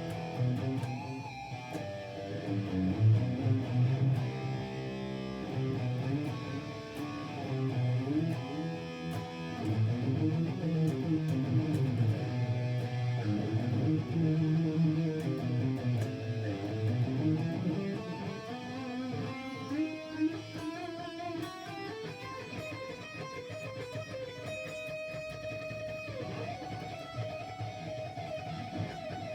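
Guitar playing the E harmonic minor scale in two fingering shapes, single notes climbing and falling in runs. It settles into a few longer held notes near the end.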